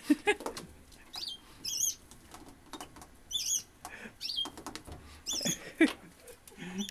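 Cat moving about inside a washing machine drum: scattered knocks and bumps, the loudest right at the start and about six seconds in. Short high chirps come several times between them.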